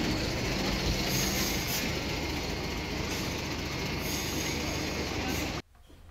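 Steady outdoor noise with an engine running, cutting off abruptly about five and a half seconds in.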